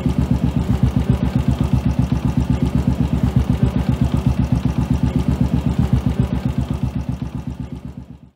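Royal Enfield Classic 500's air-cooled single-cylinder engine idling with an even thump of about eight beats a second, fading out near the end.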